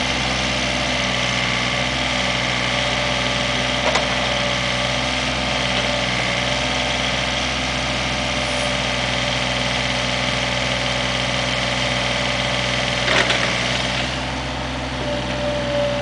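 Komatsu PC27 mini excavator's diesel engine running steadily while the boom and arm are worked, with two sharp knocks, about four seconds in and again near the end. The engine note settles a little quieter near the end.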